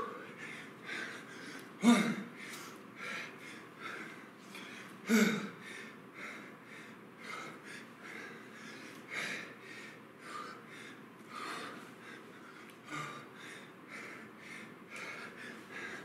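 A man breathing hard from exertion during a kettlebell squat-drive interval, about one breath a second, with two louder grunted exhales a couple of seconds in and about five seconds in.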